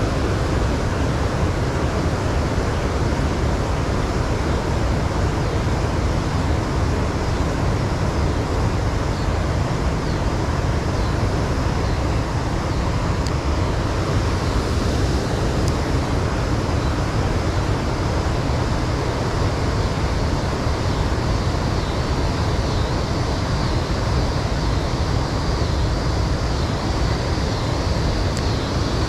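Steady rush of water pouring over a spillway, an even roar with no breaks.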